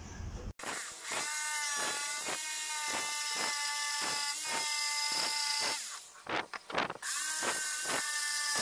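Corded electric jigsaw cutting through plywood: a steady whining motor with a regular pulse about three times a second. It stops briefly around six seconds in, then starts cutting again.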